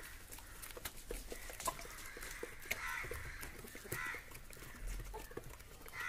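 Chickens pecking grain from a person's open hand: a run of irregular soft clicks and taps as the beaks strike the palm and seed. A few short, hoarse bird calls come in the background about three, four and six seconds in.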